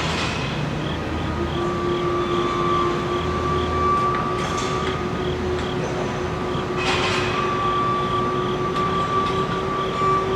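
Steady mechanical background noise with a constant hum and a higher whine, a faint pulsing running under it, and a few short clatters about four and seven seconds in.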